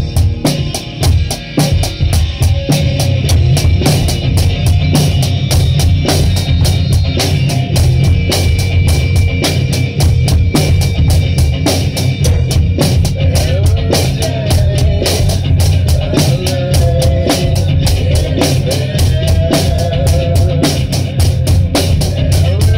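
Band playing a hardcore rock song in a small rehearsal room, with the drum kit loudest: a fast, dense run of bass drum, snare and cymbal hits over guitar. A singer's voice comes in over the band near the end.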